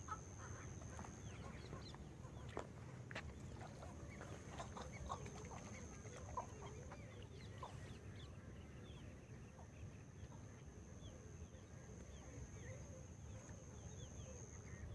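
Faint mix of many bird calls overlapping: short chirps and clucking notes scattered throughout. A thin, steady high tone runs behind them and drops out for a while about a second in.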